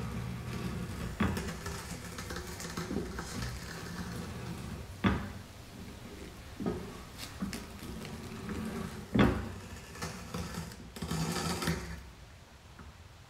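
Hard pieces being handled, knocking and clattering against each other and a surface, with scraping and rustling between several sharper knocks. It drops to a low hiss near the end.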